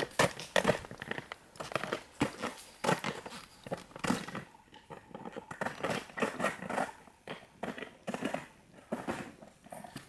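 Ice-climbing crampons crunching and scraping on waterfall ice in uneven steps as a climber is lowered down the ice, walking backward with feet flat against it.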